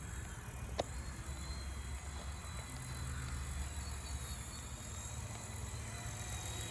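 Wind rumbling on the phone's microphone, with a faint steady high whine behind it and a single sharp click about a second in.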